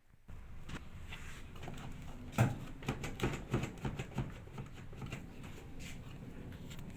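A rapid run of clicks and knocks, like parts being handled, over a low hum, with the loudest knock about two and a half seconds in.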